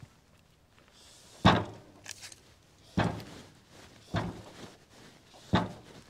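Four heavy thumps, about a second and a half apart, as a squared maple cant is shifted and knocked into position on the steel bed of a portable sawmill.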